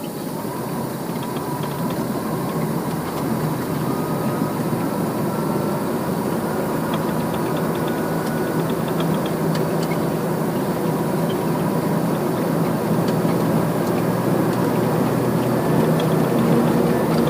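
Steady engine drone of heavy harvest machinery, with a few light clicks and rattles over it.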